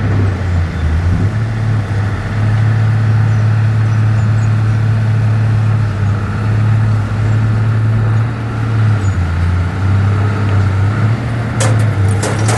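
Diesel engine of heavy earthmoving machinery running with a steady deep drone. Near the end, a burst of sharp clanking and rattling starts.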